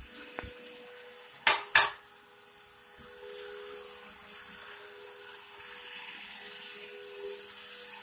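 Two loud knocks or clatters, about a quarter second apart, about a second and a half in, over a faint steady hum.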